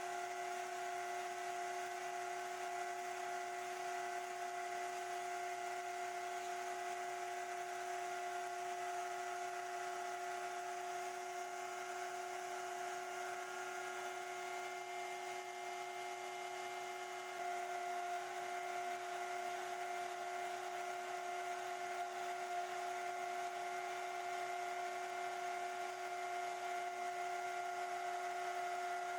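A woodworking power tool's electric motor running with a steady hum, getting a little louder and noisier about halfway through.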